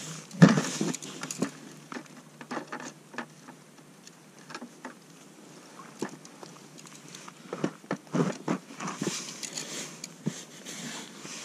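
Irregular small taps, scrapes and rustles from handling a caught smelt and the jigging rod at an ice-fishing hole, with a louder cluster about half a second in and another near two-thirds of the way through.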